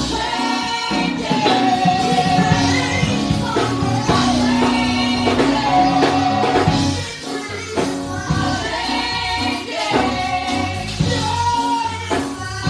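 Gospel worship music: several voices singing a melody over a band with a steady, pulsing bass.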